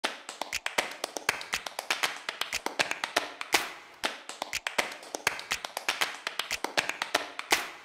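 Rhythmic percussion: sharp taps and claps several times a second over a low thump about once a second, a percussive music beat.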